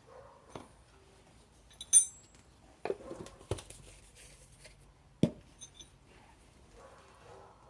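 Metal hand tools and parts being handled during a rear brake pad job: a bright ringing metal clink about two seconds in, then several sharp knocks and clatters.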